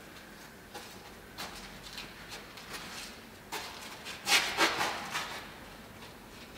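A dancer's shoes scuffing and sliding on a stone floor: a few light scuffs, then a louder run of scraping about four seconds in.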